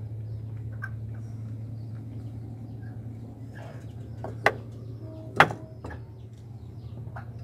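Faint bird chirps and calls over a steady low hum, with two sharp knocks about a second apart midway, the second ringing briefly.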